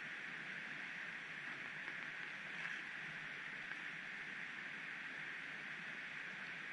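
Steady rushing of stream water, an even hiss that holds without a break.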